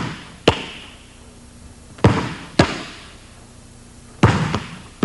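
A basketball thrown hard back and forth through spread legs, bouncing on a hardwood gym floor and slapping into the hands: sharp impacts in pairs about half a second apart, repeating every two seconds or so, each with a short ringing echo.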